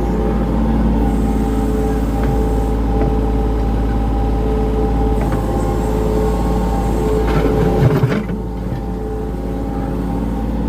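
Hitachi ZX35 mini excavator's diesel engine running steadily under work. There is a clunk about eight seconds in, after which the engine runs a little quieter.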